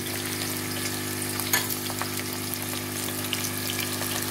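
Sliced onions sizzling as they fry in hot oil, with scattered crackles and a sharper pop about a second and a half in, over a steady low hum.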